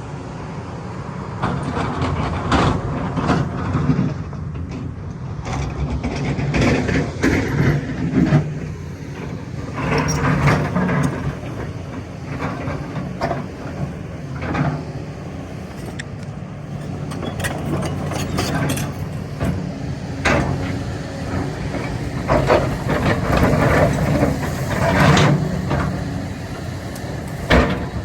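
Kobelco 380 excavator's diesel engine running under varying load, its level swelling and falling, with repeated clanks and knocks throughout.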